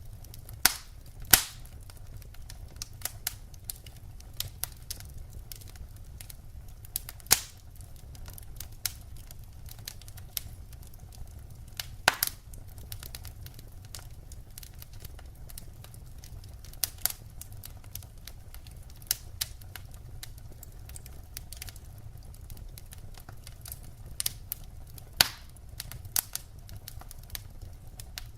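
Burning firewood crackling: irregular sharp pops and snaps over a steady low rumble. The loudest pops come about a second in, at about seven and twelve seconds, and near the end.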